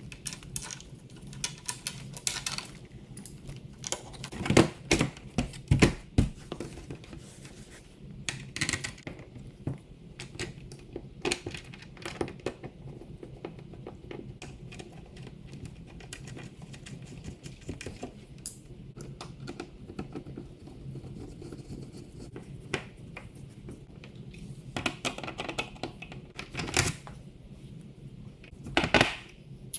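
Irregular clicks, taps and knocks of hands working on a dog door's flap and frame, with a few louder knocks in small clusters.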